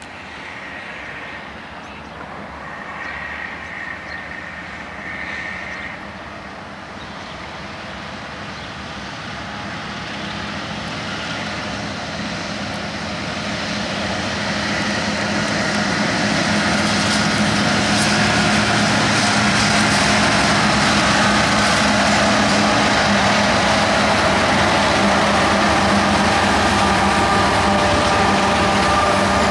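Freight train approaching, its rumble and rail noise building over about fifteen seconds, then running steady and loud as it passes close by.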